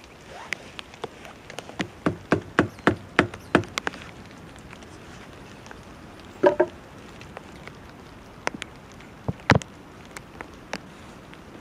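Hatchet knocking on pine poles, driving a pole into a log workbench frame: a quick run of about eight knocks, a double knock with a short ring about halfway through, then a few more single knocks.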